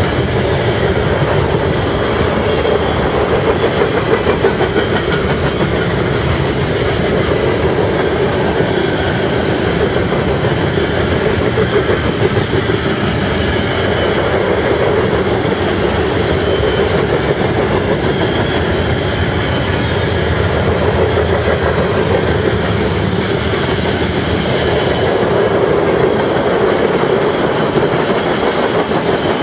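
Freight cars of a manifest train rolling past at close range: a loud, steady rumble of steel wheels on the rails, with a faint high squeal from the wheels at times.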